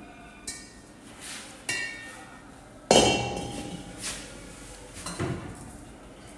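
Metal parts knocking and clinking with a ringing tail after each hit, about five knocks, the loudest about three seconds in.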